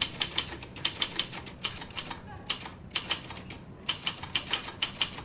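Typewriter keys clacking in quick irregular runs, broken by short pauses.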